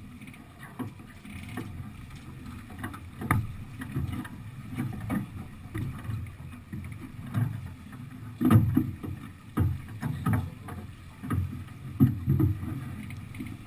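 Sailing yacht under way: water and wind noise on deck, with irregular heavy surges and sharp knocks as crew move about and handle lines.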